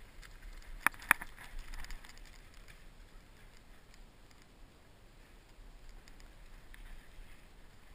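Two sharp clicks about a second in, then faint scattered ticking over a low steady hiss.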